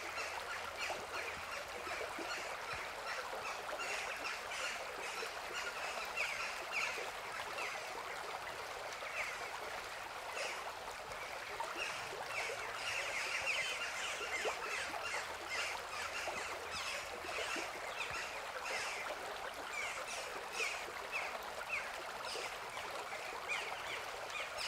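Many short bird calls repeating rapidly over a steady rushing hiss like flowing water.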